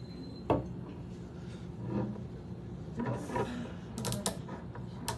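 Glass soda bottle handled and set down on a table: a sharp knock about half a second in, then lighter clinks and clicks, with a couple of sharp ticks near four seconds, over a steady room hum.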